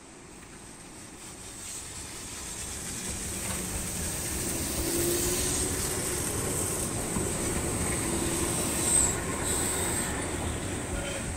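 Eizan Electric Railway Deo 900 series two-car electric train pulling away from a station, growing louder over the first few seconds as it gathers speed past the listener, its wheels running over the rails with a high steady squeal.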